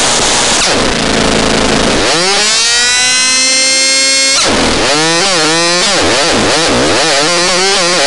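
Synthesized chainsaw sound effect. It starts as a harsh buzzing noise, then becomes a pitched buzz that rises about two seconds in and holds. Near the middle it drops and then warbles up and down about twice a second.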